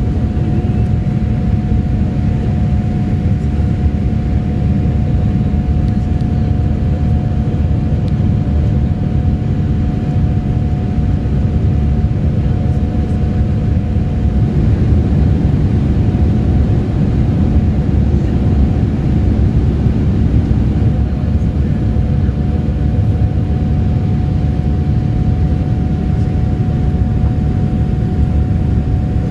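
Inside the cabin of a Boeing 787-8 climbing after takeoff: the steady rush of airflow and the Rolls-Royce Trent 1000 engines at climb power, with a steady whine held throughout.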